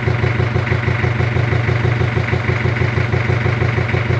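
Sailboat's inboard engine running at a steady idle with a fast, even pulsing beat, panting a bit and not running right after water was found in its air intake.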